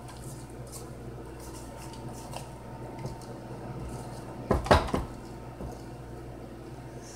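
Silicone spatula scraping down the sides of a stainless steel stand-mixer bowl full of pound cake batter. A few sharp knocks come about four and a half seconds in, as the spatula strikes the metal bowl.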